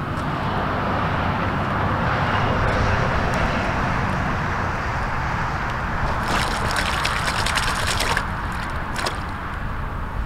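Water sloshing and trickling around a keepnet full of crucian carp, then about six seconds in a two-second burst of splashing as the net is dipped into the river and the fish are released, with one more short splash after.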